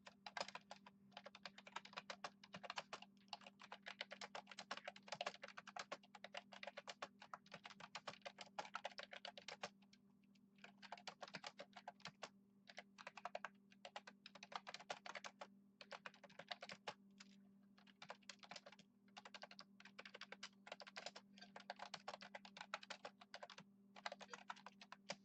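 Computer keyboard typing, quick runs of key clicks broken by short pauses, over a faint steady hum.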